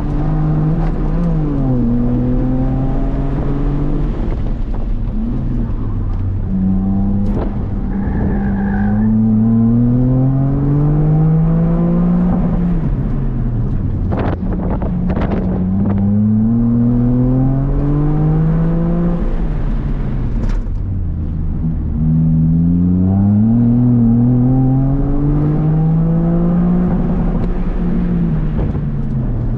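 Toyota GR Corolla's turbocharged 1.6-litre three-cylinder heard from inside the cabin, revving up in long rising pulls and dropping back repeatedly as the car accelerates hard and lifts between cones. A few sharp knocks come about halfway through.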